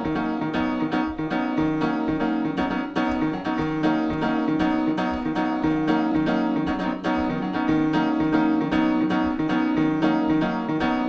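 Background music with a keyboard playing quick, evenly repeated notes, about four a second.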